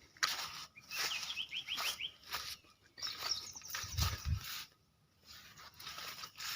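Outdoor ambience: a bird calling in two quick runs of repeated chirps, over recurring rushes of noise and a couple of low thumps on the microphone.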